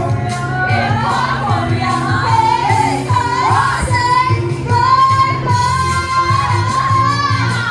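A song playing: a singing voice holding long notes over a steady bass line.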